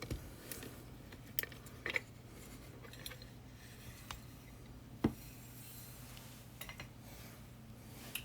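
Scattered light clicks and clinks of small metal tools and a lock being handled and set down on a desk, with one louder knock about five seconds in.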